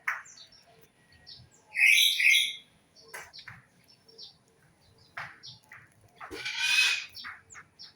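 Birds chirping and calling: many short high chirps, with a louder call about two seconds in and a harsher, louder call about six and a half seconds in.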